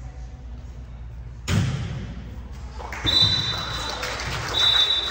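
A single hard thud of a ball in a large gym hall, echoing, about a second and a half in. It is followed by spectator noise and a high steady tone that sounds twice, each time for under a second.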